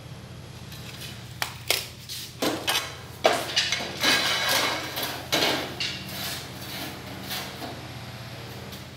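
Ceramic tiles and a manual rail tile cutter clacking and knocking as tiles are handled and set on the cutter, with a scratchy scraping stretch of about a second and a half near the middle, over a steady low hum.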